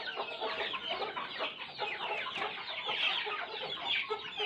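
A flock of chickens clucking, mixed with the constant high peeping of chicks, as the birds feed together.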